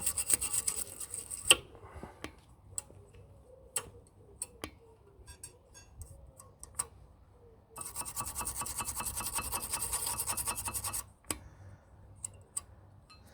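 Two bursts of rapid rasping from a hand tool working on a car's front brake caliper, with scattered metal clicks and knocks between them.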